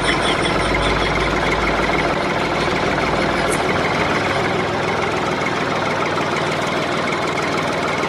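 Steady tractor engine running sound, a sound effect laid over a toy tractor towing.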